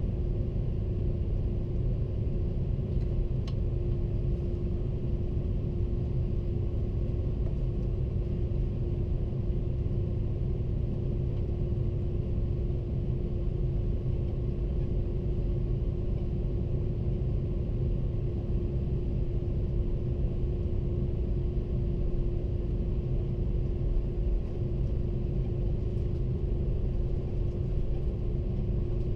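Steady cabin noise inside an Airbus A330-300: an even low rumble of the jet engines and airflow, with one constant hum over it.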